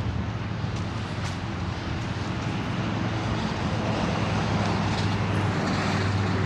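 A motor vehicle's engine running, a steady low hum under road or wind noise, growing a little louder about four seconds in.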